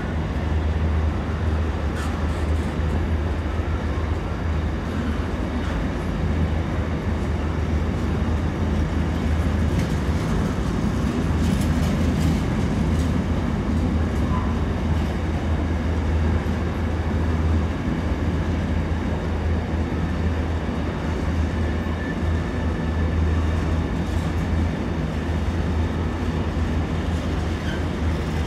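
Container freight train rolling past, its wagons' wheels rumbling steadily on the rails, with a few faint clicks and clacks.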